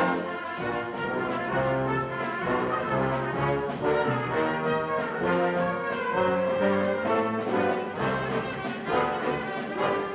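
Brass ensemble of trumpets, trombones, French horn and tuba with drums playing a fast choro, with short quick notes over a bass line.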